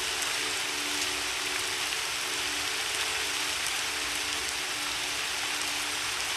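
Recorded rain falling steadily, with a few soft, held piano notes beneath it that fade away in the second half.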